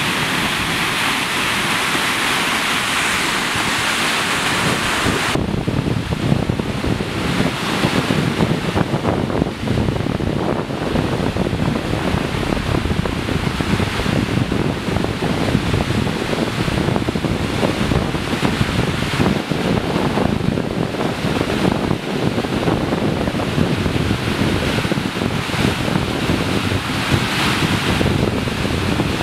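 Flash flood of muddy red water rushing and churning, a loud steady rush of water. About five seconds in the sound loses much of its hiss and turns deeper.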